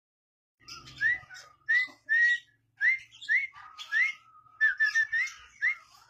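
Caged lovebird singing: a run of short rising whistled notes, about two a second, with squeaky chatter above them, starting about half a second in.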